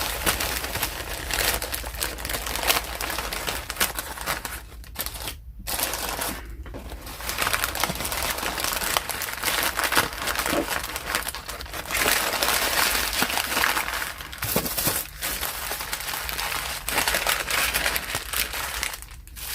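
Sandwich wrapping paper crinkling and rustling as it is handled and folded, with brief pauses.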